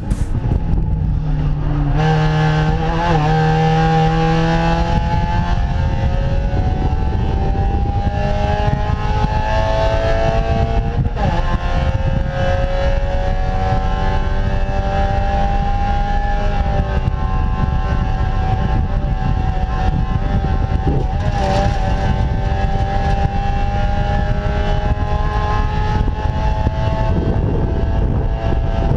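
Spec Miata (Mazda MX-5) four-cylinder engine at racing speed, heard from inside the cockpit over wind and road noise. The revs climb slowly through long pulls in gear, with brief dips about eleven and about twenty-one seconds in.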